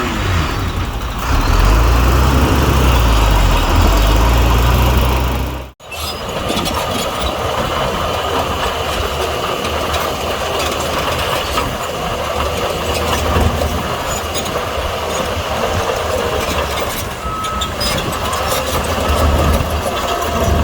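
Heavy diesel earthmoving machinery running. The engine is strong and low for the first few seconds, then cuts out suddenly just under six seconds in, and is followed by steady engine and mechanical noise.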